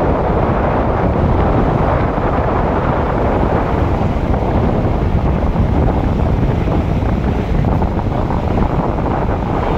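Steady wind noise on the microphone from a moving car, mixed with the car's road and engine noise, unchanging throughout.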